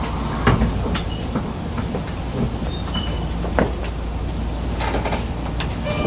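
Kyoto Municipal Subway Tozai Line train running, heard from inside the car: a steady low rumble with scattered clicks and knocks.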